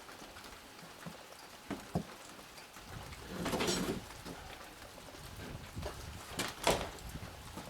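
Rain falling steadily, with several sharp knocks and a scrape as a wooden door is moved; the two loudest knocks come near the end.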